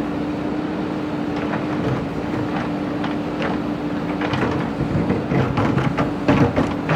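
JCB backhoe loader's diesel engine running at a steady pitch, with irregular knocks and clatter of the bucket working broken brick and stone; the knocks come thicker in the second half.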